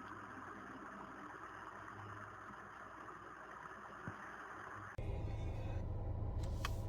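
Steady rushing wind noise. About five seconds in, it cuts abruptly to the steady low hum of a car engine heard from inside the cabin.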